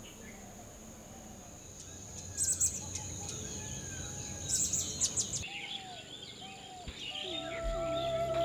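Birds calling and chirping over a steady high-pitched insect drone, with two loud bursts of high chirps about two and a half and four and a half seconds in.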